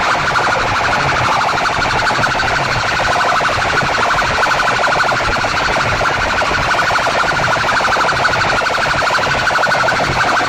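Massed horn loudspeakers of a sound-system rig playing a loud, steady, rapidly pulsing electronic tone like an alarm or siren, driven at full volume.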